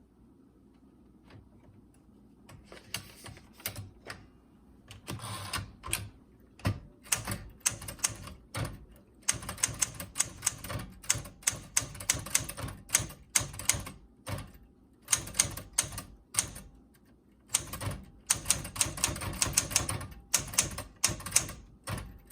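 Keys of a Sears Citation portable manual typewriter, built by Smith Corona, being typed: runs of rapid key strikes start a couple of seconds in, broken by short pauses between words.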